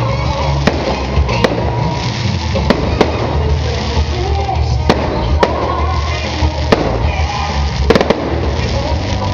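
Aerial firework shells bursting in sharp bangs at irregular spacing, roughly one a second, over music playing throughout.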